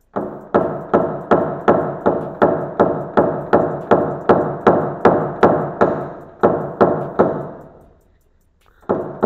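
Paintless dent repair hammer striking a nylon knockdown pin held on a car's sheet-metal panel, a steady run of taps at about three a second, knocking down the high spots of a rippled dent. The tapping stops about eight seconds in and starts again near the end.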